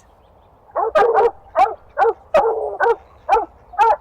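Dog barking repeatedly: a run of short, sharp barks about two a second, starting just under a second in.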